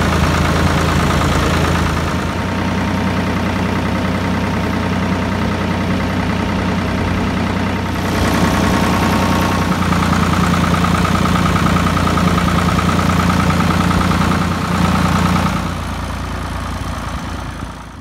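Farm tractor engine running steadily as the tractor is driven along a dirt lane. It gets a little louder about halfway through, drops back shortly before the end, then cuts off suddenly.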